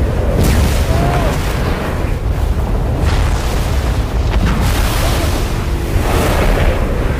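Film sound design of a giant sandworm ploughing through desert sand: a loud, continuous deep rumble with rushing wind and sand, and several whooshing surges.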